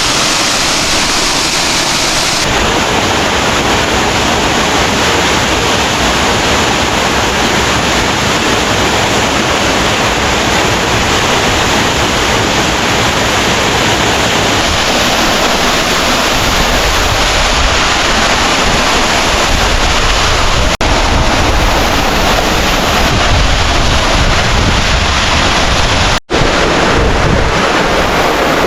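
A waterfall's water rushing in a loud, steady roar. In the second half a low rumble of wind on the microphone joins it.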